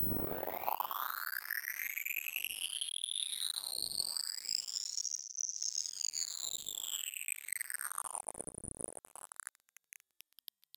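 Electronic sine test tone of a hearing-test frequency sweep, high in its 6–20 kHz range, heard with thin gliding whistles that rise and fall around it. It fades out about nine seconds in.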